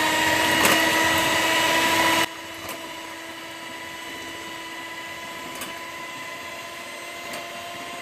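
Electric hand mixer running steadily with its beaters whisking eggs and sugar in a bowl, a constant motor whine. The sound drops sharply in level about two seconds in and then carries on at the same pitch, with a few light clicks of the beaters against the bowl.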